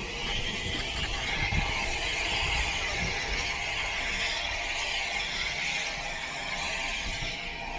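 Steam locomotive standing at the platform, giving a steady hiss of steam over a low rumble.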